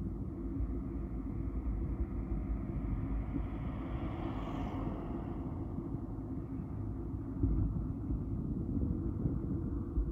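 Road traffic: a steady low noise of vehicles, with one car passing by about four to five seconds in, swelling and then fading.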